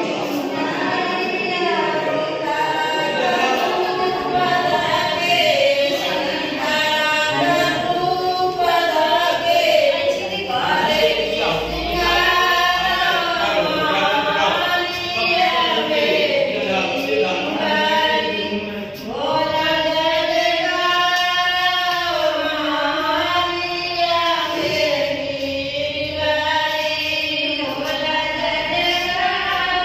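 Group singing: several voices singing together in a chant-like melody, without a break.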